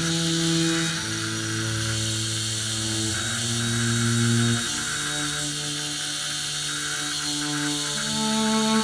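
Slow background music of sustained low chords that change every few seconds, over a steady mechanical rasp of a hand file and abrasive cloth working a steel shaft as it spins in a homemade mill used as a lathe, to take out the shaft's runout.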